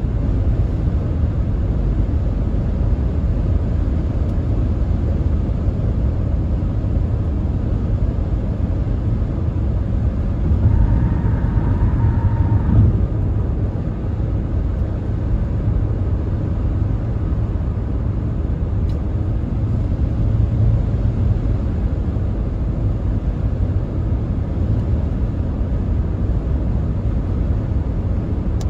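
Steady low road and engine rumble of a car cruising on the highway, heard from inside the cabin. A short steady higher tone rides over it for a couple of seconds about ten seconds in.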